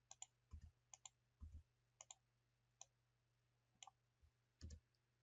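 Faint computer mouse clicks, about one a second and several in quick pairs, with a few dull low thumps.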